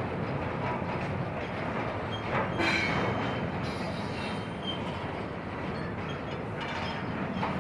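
Union Pacific intermodal freight train rolling past: steady wheel-on-rail rumble with a few clanks about two and a half seconds in and brief faint wheel squeals.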